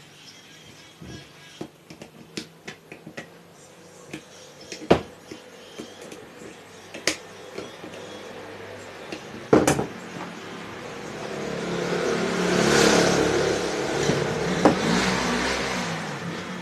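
Small sewing machine motor: clicks and knocks as it is handled, then about ten seconds in it is switched on and spins up to a steady whine, its pitch wavering slightly near the end, running normally after the repair of its short.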